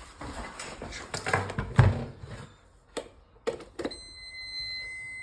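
Clicks and knocks of a test lead and probe being handled at a socket, then, about four seconds in, an electrical circuit tester gives a steady high beep while it takes a reading.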